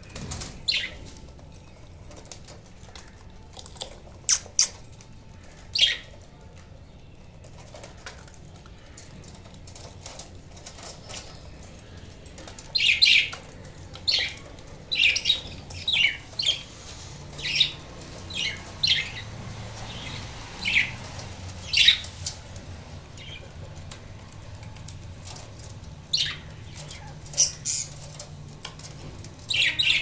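Budgerigars chirping: short, sharp, high calls, a few scattered at first, then coming thick and fast through the middle and again near the end.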